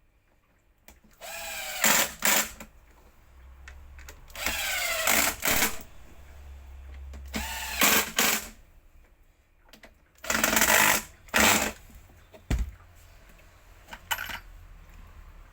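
Power drill running in four short bursts, its motor pitch sweeping as it spins up at each start, followed by a sharp click.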